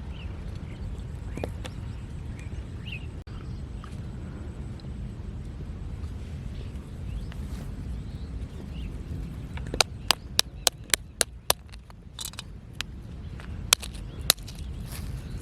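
Outdoor rural ambience: a steady low rumble with faint short chirps. About ten seconds in comes a quick run of about six sharp clicks, and two more sharp clicks follow near the end.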